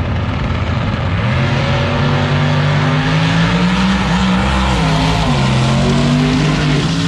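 No-prep drag racing cars' engines at full throttle making a pass down the strip: a loud, continuous blare whose pitch climbs and wavers, with a couple of brief dips.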